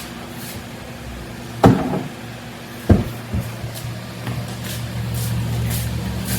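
Two heavy door thumps about a second apart, then a car engine idling with a steady low hum.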